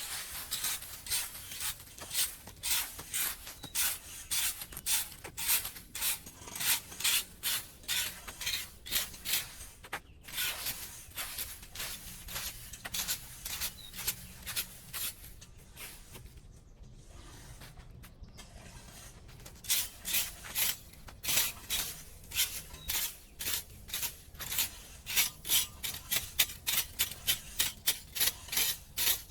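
Rhythmic scraping strokes, about two a second, of a hand tool working debris clear of a clogged drain. There is a pause of a few seconds in the middle.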